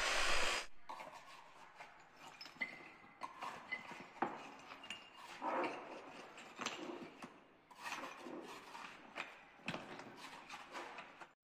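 An electric demolition hammer breaking floor tile runs briefly and cuts off under a second in; then broken ceramic tile and rubble clink, knock and scrape as they are cleared by hand with a small hammer and a hand tool.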